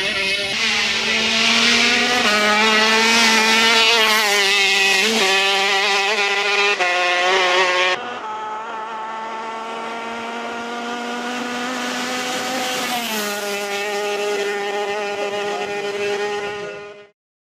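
125cc two-stroke KZ shifter-kart engine running at high revs, its pitch dipping and climbing again several times. About halfway through the sound drops suddenly to a quieter engine note that climbs steadily in pitch, then cuts off abruptly near the end.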